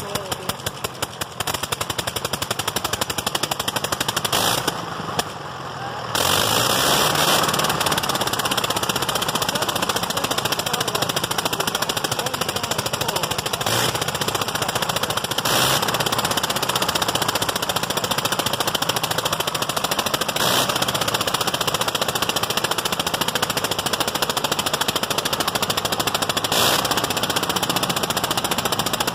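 1918 Gnome rotary aircraft engine running on a test stand, its propeller turning, with a rapid staccato firing. Around five seconds in the firing goes quieter and sparser, then about six seconds in it picks up abruptly and holds loud and steady.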